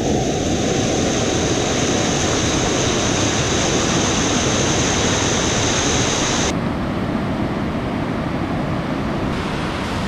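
Flood-swollen stream rushing over rock at a waterfall: a loud, steady rush of white water. About six and a half seconds in the sound shifts and the high hiss drops away.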